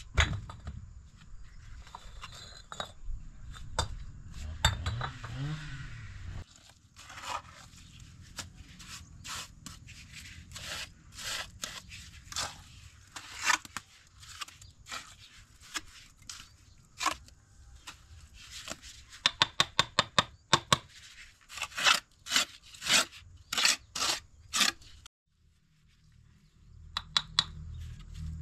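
Irregular scraping, clicking and tapping of hand work, with runs of quick, evenly spaced taps, about three a second, about two-thirds of the way through.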